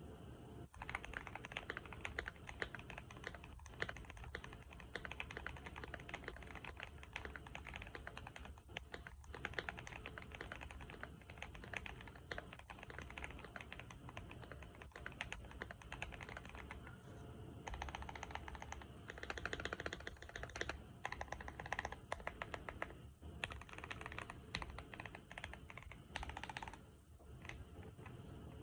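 Typing on a Keychron Q1 mechanical keyboard: a steady, fast run of key clicks and keystrokes, with a few busier, louder stretches in the second half.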